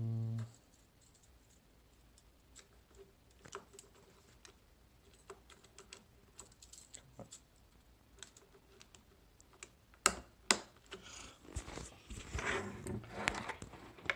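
Light plastic clicks and taps from the Havit HV-KB380L keyboard and its keycaps being handled and fitted. About ten seconds in come two sharp snaps, then a few seconds of busier clicking and rattling.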